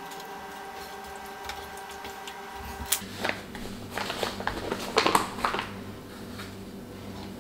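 Fingers squishing and rubbing spice powder into a basa fish fillet on a plate. Then a brown paper spice pouch rustles in a few short bursts partway through, over a steady faint hum.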